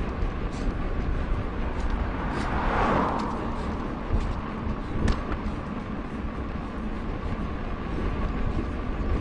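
Wind and road noise of a mountain bike ride picked up by an action camera's microphone: a steady low rumble and rushing hiss with scattered small clicks, and a short swell about three seconds in.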